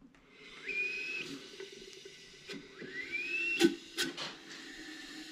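Old hit and miss engine being turned over slowly by hand on its compression stroke, not running. Its parts give a few light clicks, with two short faint whistling sounds, the second rising in pitch.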